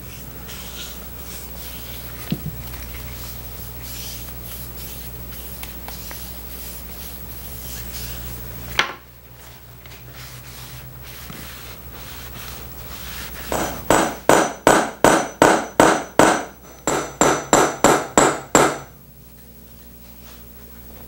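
Foam brush and rag rubbing dye onto a wooden chair arm panel, faint over a steady hum. Then a run of sharp hammer taps, about three a second in two bursts, setting nails into the chair's wooden arm.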